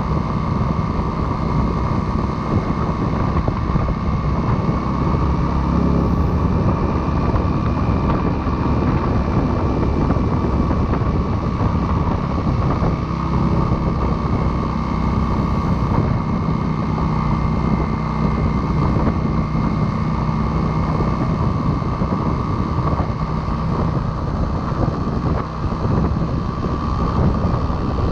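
Motorcycle riding at a steady speed: the engine runs evenly under loud wind and road noise rushing over a chest-mounted camera's microphone.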